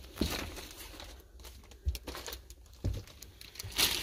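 Rustling and a few soft knocks of someone moving about and handling things inside a small camper van, with the loudest rustle near the end.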